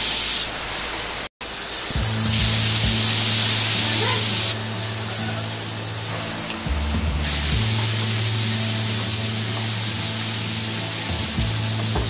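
Cubed potatoes frying in oil in a nonstick pan, a steady sizzling hiss, under background music with low sustained notes. The sound breaks off for an instant about a second in.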